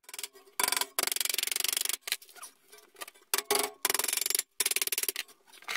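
MIG welder crackling in a series of short bursts, from a quarter second to about a second long with brief pauses between, as it tack-welds thin sheet-steel floor patches.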